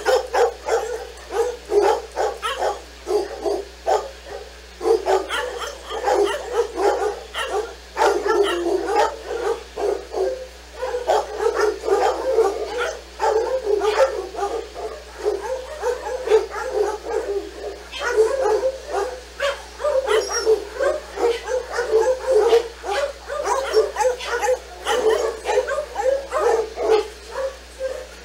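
Dog barking over and over in quick, sharp barks, a few a second, with hardly a pause.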